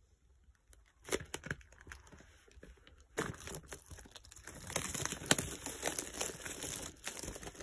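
Thin plastic shrink wrap crinkling and tearing as it is pulled off a cardboard retail box, a few scattered crackles at first, then busier and louder from about three seconds in.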